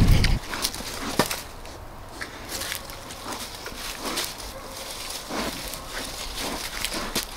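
Pigs moving and rooting over a dry forest floor, with scattered crackles, rustles and sharp snaps of dry leaves and twigs. A low rumble cuts off just after the start.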